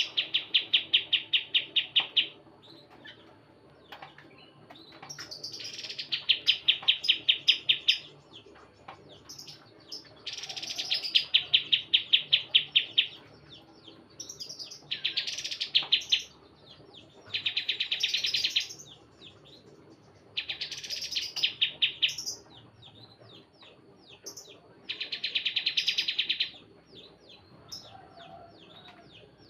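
Kapas tembak songbird singing its rapid 'tembakan' trill: seven bursts of fast, evenly repeated loud notes, each one to three seconds long, with softer chirps in the gaps. It is a lure song, played to set other kapas tembak singing.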